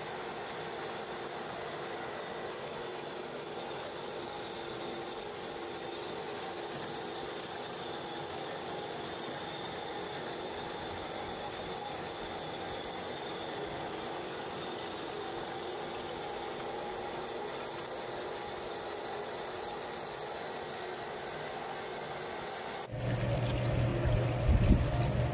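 Gold-recovery shaker table running: water washing steadily over the riffled deck, with the steady hum of the table's drive and pump. About two seconds before the end it cuts to a louder, deeper machine hum with some low rumble.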